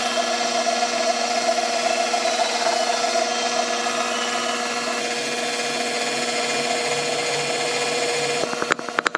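KitchenAid stand mixer motor running steadily on a low speed with a dough hook turning through flour and dough, a steady whine over gear noise. Near the end the sound breaks into a rapid run of short knocks.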